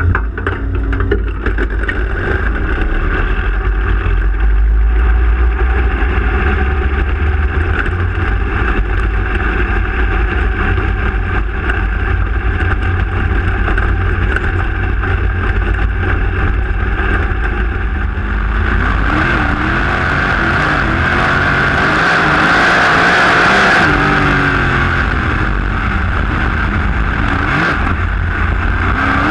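Dirt-track race car's engine running at speed, heard from inside the cockpit as a loud, steady low rumble. About two-thirds of the way through, the engine pitch rises and falls repeatedly as the throttle comes on and off through the turns.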